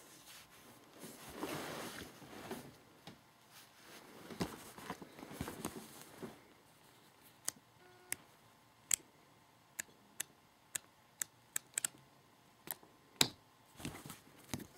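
Handling noise from plastic toy figures and a cardboard packaging card: soft rustling and shuffling for the first few seconds, then a run of sharp clicks and taps, irregularly spaced, toward the end.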